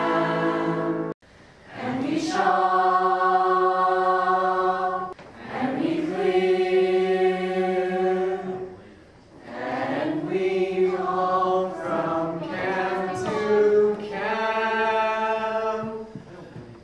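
A choir singing long held chords in three phrases with short breaks between them; the sound cuts off abruptly about a second in before the next phrase begins.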